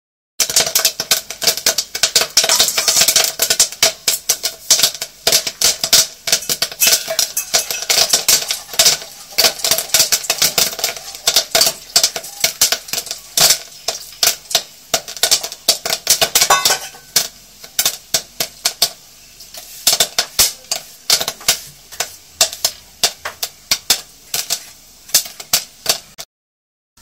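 Dry maize kernels popping in hot oil in a pan covered with a steel dome lid, a rapid crackle of many sharp pops. The popping is dense at first and thins out to scattered pops near the end, the sign that the popcorn is nearly done.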